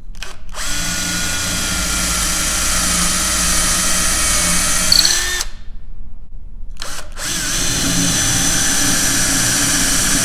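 Cordless drill boring holes into a wooden boat hull with a twist bit: a quick blip of the trigger, then a steady whine of about five seconds that stops, and after a short pause another blip and a second steady run.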